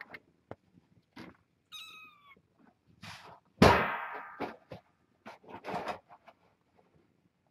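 Young kittens scuffling close by, with scattered light knocks and one short high mew about two seconds in. A little past halfway comes a loud thump, the loudest sound, followed by more scrabbling knocks.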